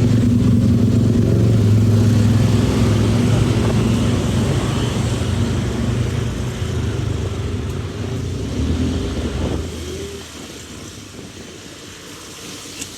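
Motorbike engine running steadily under road and wind noise, fading away about ten seconds in.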